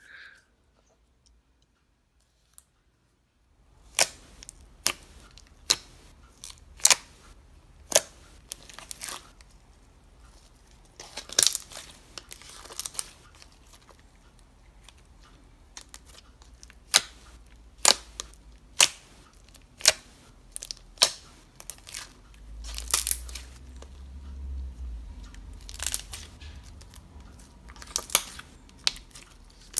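Slime being worked by hand, giving sharp clicks and pops roughly once a second over faint squishing. The first few seconds are near silence.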